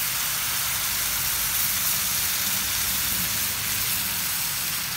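Fish sauce and cold water just spooned into a hot frying pan of browned round scad, sizzling with a steady hiss as the braise begins.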